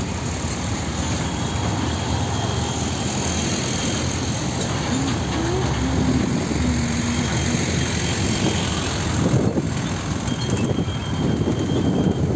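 Diesel engine of a container tractor-trailer rumbling as the truck passes close by at low speed, with tyre and road noise.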